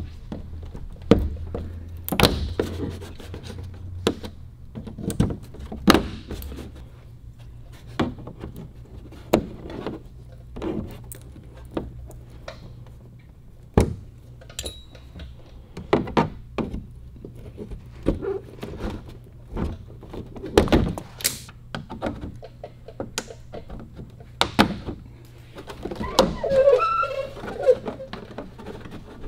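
Plastic push-pin retainers being pried out of a Jeep JL's inner fender liner: irregular sharp clicks and thunks, roughly one every second or so.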